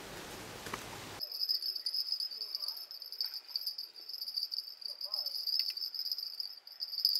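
Insects trilling steadily in the riverside trees, a high, shrill, slightly pulsing buzz. During the first second there is only a low hiss with a few faint clicks, and then the trill comes in suddenly.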